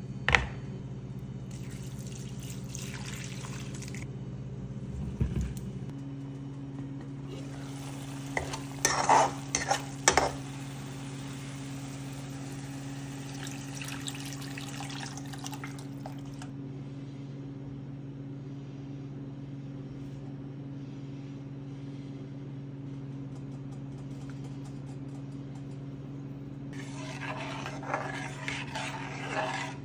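Kitchen cooking sounds: liquid splashing as it is poured into a pot, then a spoon stirring and scraping in a pan, over a steady low hum with a few sharp clinks of utensils.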